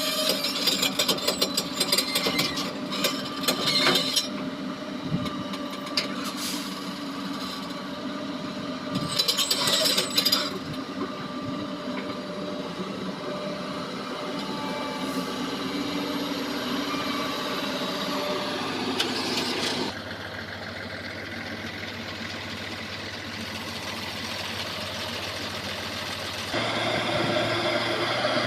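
Heavy earthmoving machine's diesel engine running steadily, with bursts of metal clanking and rattling in the first few seconds and again about ten seconds in. The engine sound drops about twenty seconds in and rises again near the end.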